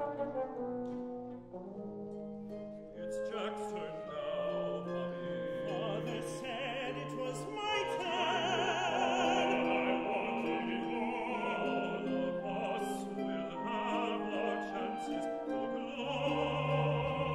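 Male opera voices singing with vibrato over a chamber ensemble of winds, brass, strings and piano. Low notes grow stronger near the end.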